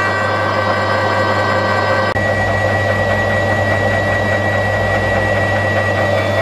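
Steady machine hum with a thin high whine over a noisy hiss, changing abruptly about two seconds in.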